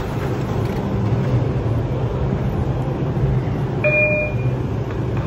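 R142A subway train standing at the platform, its equipment giving a steady low hum with a brief tone about four seconds in.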